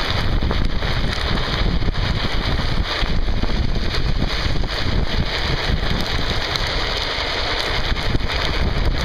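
Wind buffeting the microphone at speed, over a steady rumble of drift-trike wheels rolling on asphalt, with scattered small clicks.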